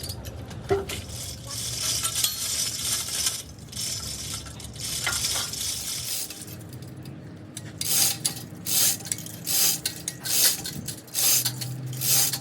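Metal clinking and scraping on metal parts, with a run of short repeated hissing bursts in the second half.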